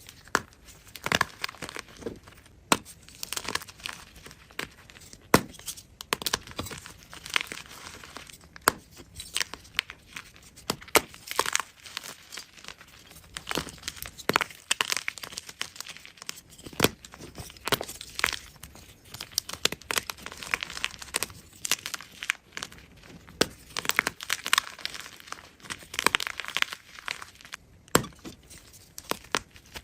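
Block of gym chalk being crushed and crumbled, an irregular run of dry crunches and crackles with crumbly hiss between them.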